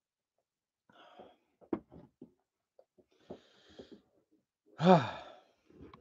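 A man breathing, with a few small clicks, then about five seconds in a short, loud voiced exhale, like a wheezy sigh or cough.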